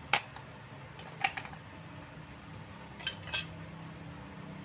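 Long steel engine bolts clinking against one another as they are handled: a few sharp metallic clinks, one just after the start, one about a second in, and two close together about three seconds in.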